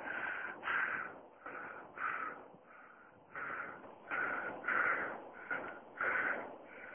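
A man panting hard, in quick short breaths about one and a half a second, winded from climbing a steep hillside carrying a heavy pack of gear.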